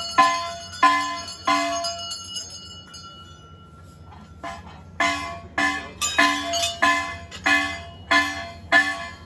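Hanging brass temple bell rung by hand, giving the same pitched clang with each stroke, about one and a half strokes a second. Three strokes, a pause of about three seconds while the ring dies away, then a run of seven more.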